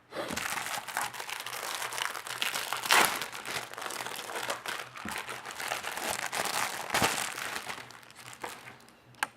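Wrapping of a two-magazine pack being torn open and crumpled by hand: continuous crinkling and crackling, with louder rips about three seconds in and again about seven seconds in, dying away near the end with one sharp click.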